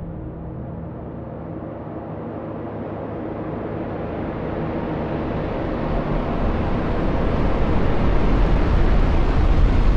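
Cinematic whoosh sound effect: a slow, rumbling noise swell that grows steadily louder and brighter, building toward a hit.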